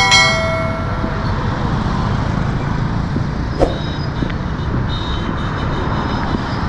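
Steady road traffic from motorcycle taxis, minibuses and cars passing on a busy city road, with a continuous low engine rumble. A bright ringing tone at the very start fades out within about a second, and a short click comes about three and a half seconds in.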